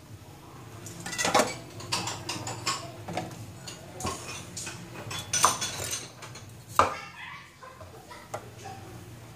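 Cleaver cutting bitter gourd on a wooden chopping board: a handful of irregularly spaced knocks of the blade on the board, the two loudest in the second half.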